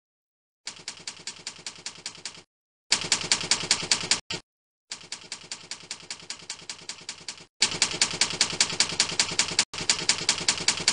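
Typewriter keystroke sound effect: rapid runs of key clacks, about eight or nine a second, in five bursts broken by short pauses. It accompanies text being typed out letter by letter on screen.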